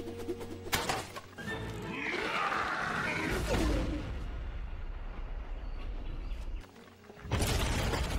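Animated-film soundtrack: music mixed with cartoon sound effects. There is a sharp hit about a second in, then a rushing sound and a low rumble, and a loud burst of noise near the end.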